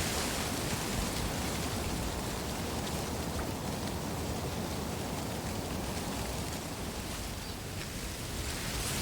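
Wind blowing through a reed bed: a steady rushing rustle over a low rumble, easing a little near the end before picking up again.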